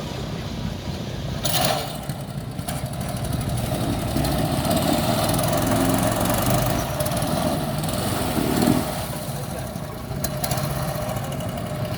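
An engine running steadily with an even low rumble, growing louder about four seconds in.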